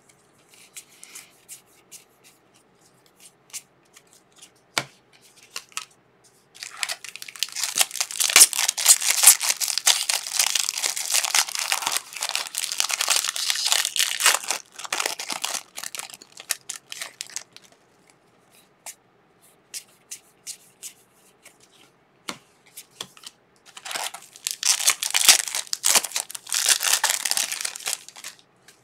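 Foil-lined trading card pack wrappers crinkling and tearing as they are ripped open by hand. This comes in two long bouts of crackling, the second shorter, with light ticks of cards being handled in the quieter stretches between.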